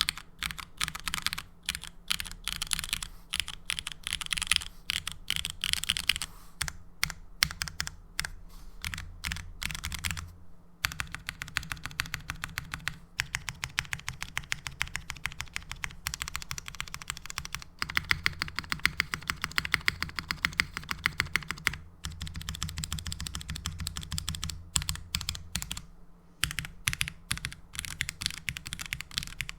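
Mechanical keyboard being typed on fast and steadily: lubed linear Cherry MX Black Hyperglide switches on a carbon fiber plate in a gasket-style O-ring-mounted polycarbonate 65% case, giving a rapid run of key strokes with brief pauses every few seconds.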